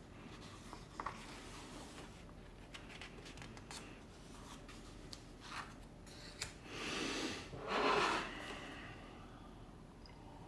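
Pages of a book being leafed through: soft paper rustles and a few small clicks, with two louder rustles about seven and eight seconds in, then a hand rubbing over the paper to flatten the open book.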